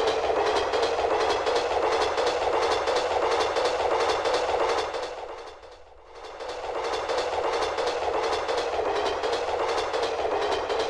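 Sampled sound effect of a running train from a Casio CT-X9000 keyboard: steady rumble with fast clickety-clack of wheels over rail joints. About halfway through it fades out almost completely, then swells back to full level.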